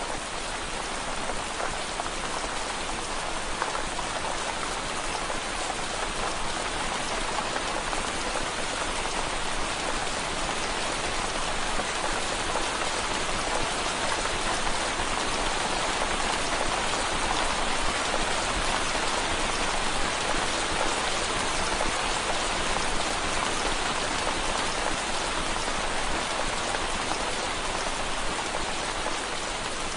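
Steady rain pattering on window glass: a dense, even patter with no pauses, growing a little louder midway.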